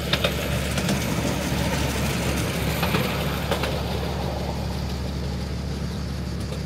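Engine idling steadily, with a few sharp clicks on top.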